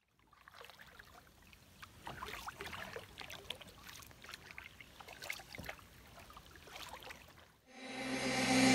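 Kayak paddle blades dipping into calm water, with small splashes and drips trickling off the blades in loose, irregular strokes. Music fades in and grows louder near the end.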